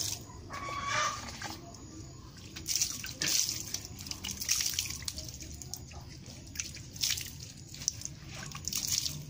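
Water splashed by hand onto a horse's belly and legs, splashing and dripping onto wet, muddy ground in irregular bursts as the coat is washed and rubbed.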